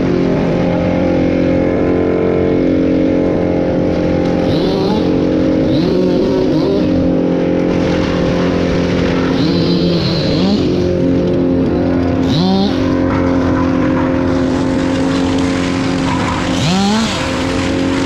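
Crane truck's engine running steadily under load, with its pitch sweeping up briefly about five times.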